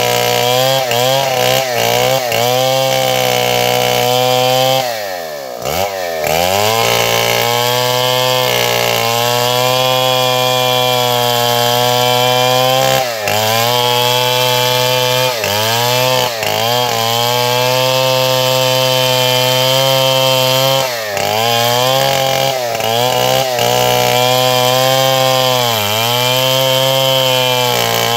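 Stihl 070 two-stroke chainsaw running at full revs while cutting wood. Its engine note drops and swoops back up several times as the throttle is briefly eased off and opened again.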